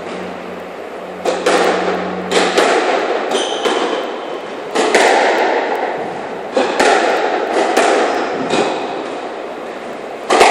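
Squash rally: the ball smacked by rackets and slapping off the court walls, sharp hits starting about a second in and coming roughly once a second, each ringing on in the echoing court.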